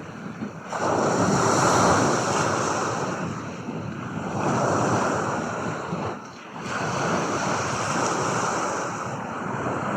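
Surf washing ashore: a loud rush of noise that swells and falls back, with brief lulls near the start and a little past halfway.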